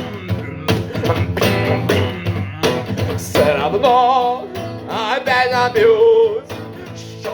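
Blues band music: guitar playing with a wavering melody line over it.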